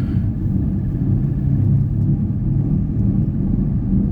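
Subaru driving along with a steady low rumbling grind, a rub from the drivetrain that the owner can't place between a wheel bearing, the differential or the transfer case.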